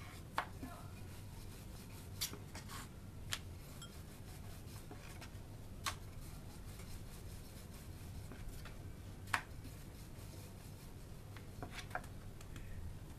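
Pita dough being rolled out and pressed by hand on a wooden board with a wooden rolling pin: soft rubbing and scraping, broken by a handful of sharp knocks, over a steady low hum.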